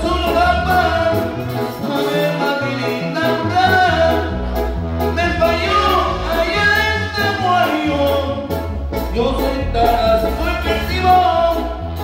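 A band playing a Latin dance tune live, with a steady bass line under a singer's wavering melody.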